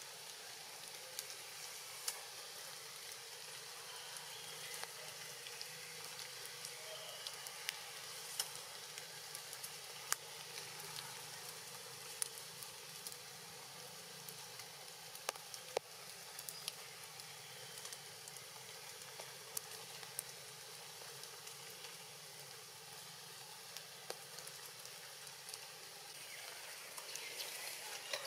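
Steady rain falling on forest leaves: a constant hiss with scattered sharp drips striking close by.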